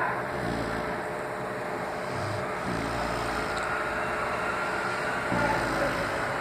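A dog snoring in its sleep, with a rough snore about every three seconds.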